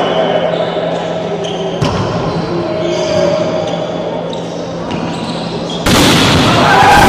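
Indoor volleyball rally in an echoing gym hall: a sharp ball strike about two seconds in, with players' voices. Near the end comes a sudden loud burst of crowd and player shouting as the attack at the net is played.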